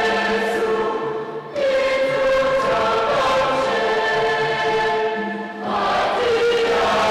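Choir singing in long held notes, pausing briefly twice between phrases.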